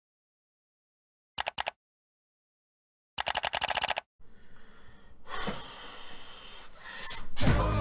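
Glitching video-call audio while the stream is frozen and buffering: short clipped blips that cut off sharply, then a run of rapid stutters about three seconds in. A breathy exhale follows, and music starts just before the end.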